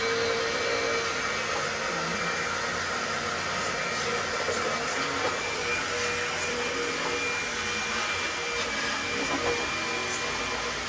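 Steady whir of an electric motor driving air, like a fan, with a faint steady whine over it.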